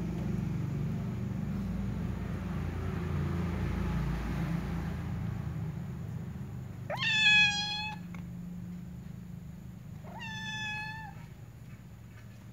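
A domestic cat meowing twice: two drawn-out meows about three seconds apart, the first about seven seconds in and the louder of the two. A low rumble runs underneath and fades away by the second meow.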